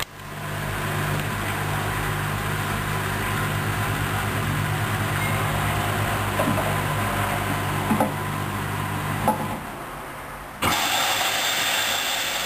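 Hoover Dynamic Wash washing machine running a spin: a steady motor and drum hum with a couple of brief clicks. The hum dies away about nine and a half seconds in, and a different steady hiss starts suddenly near the end.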